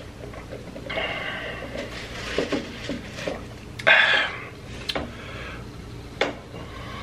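Close-miked mukbang eating sounds: wet chewing, squishing and mouth clicks in an irregular run, with a louder noisy bite or slurp about four seconds in.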